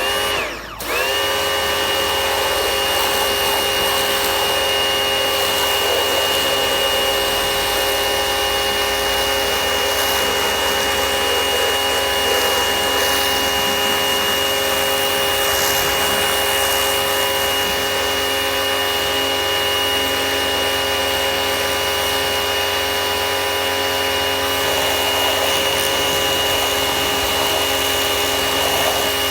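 Bosch AQT 35-12 electric pressure washer starting up: its motor and pump spin up within about a second, then run at a steady, even whine.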